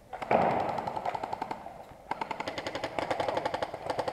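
Airsoft gun firing on full auto: rapid, evenly spaced shots in a long burst starting about a third of a second in, a short break near the middle, then a second long burst.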